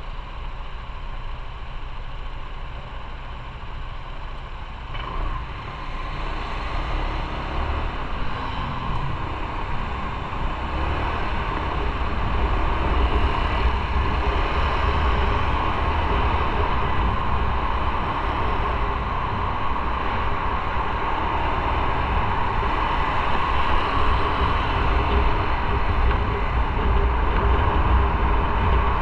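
Motorcycle riding on the road: engine and wind noise, growing louder over the first twelve seconds or so and then holding steady.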